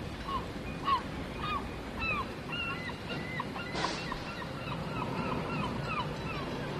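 A flock of birds calling, with short hooked honking calls repeated two or three times a second, over a steady background rush. There is a brief louder whoosh about four seconds in.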